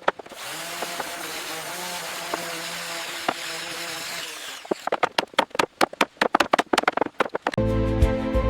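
A power tool runs with a steady hum and hiss for about four seconds, then a rapid run of sharp knocks, about four or five a second. Music starts near the end.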